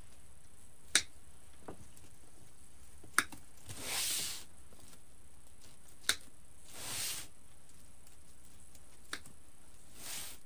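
Wire cutters snipping the excess ends off twisted pipe cleaners: about four sharp snips a few seconds apart, with a couple of soft rustles in between.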